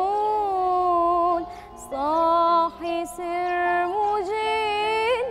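A woman singing an Islamic devotional chant (ibtihal) in maqam nahawand, drawing out long ornamented notes with brief breaks between phrases.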